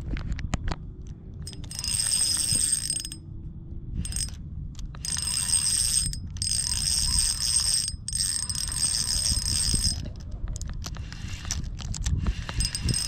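Fishing reel drag buzzing in several high-pitched runs, with short breaks between them, as a hooked fish pulls line off the reel. A low rumble runs underneath throughout.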